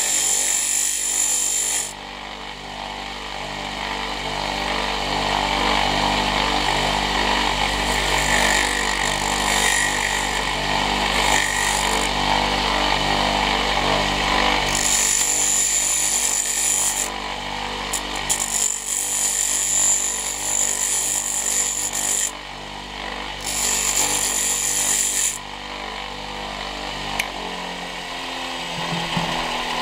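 Homemade mini wood lathe running, its electric motor humming steadily, while a turning tool cuts the spinning wooden blank in several bouts of a few seconds, each cut adding a loud, high scraping hiss.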